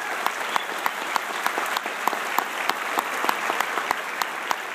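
Audience applauding. One close clapper stands out in sharp, evenly spaced claps about three a second.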